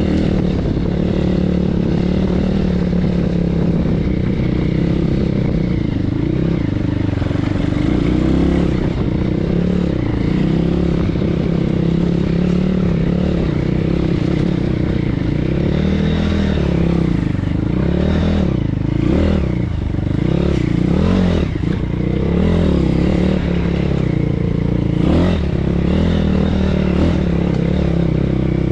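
150 cc single-cylinder four-stroke engine of a BSE PH 150E pit bike running under way off-road. The engine holds a fairly even note at first, then from about halfway its speed rises and falls again and again with the throttle, with a few sharp clicks among it.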